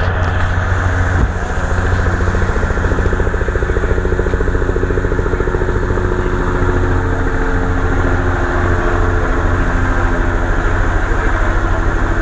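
A vehicle engine idling steadily, a loud, even low drone.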